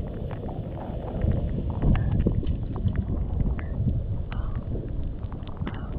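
Wind rumbling on the microphone over water lapping in a rocky tide pool, with scattered small splashes and drips.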